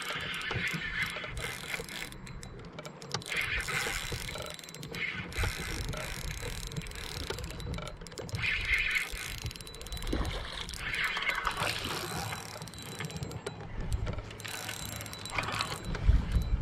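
Spinning reel being cranked in short spells of about a second, several times, over a constant low rumble.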